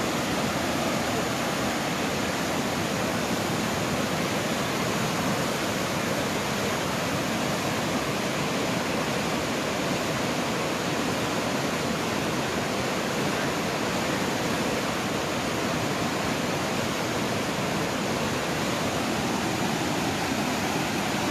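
Steady rush of floodwater pouring through a breached river embankment, an even noise with no breaks.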